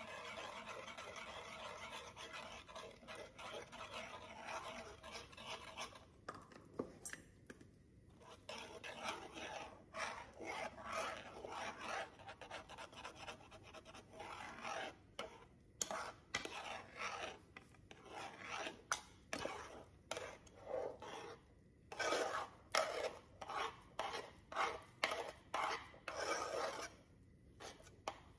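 Metal spoon stirring and scraping gari (cassava flakes) around a metal pot as they swell in hot water into a stiff dough: repeated scraping strokes against the pot, stronger and more regular in the second half.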